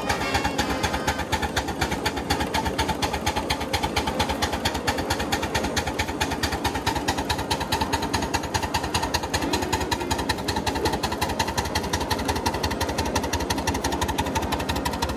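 1/8-scale live steam Pacific locomotive working up a 3% grade, its exhaust beating in a rapid, even rhythm.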